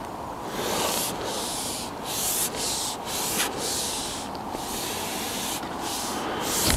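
Repeated rubbing, sliding hiss in stretches of about a second with short breaks, as a hooked carp is played on a fishing pole.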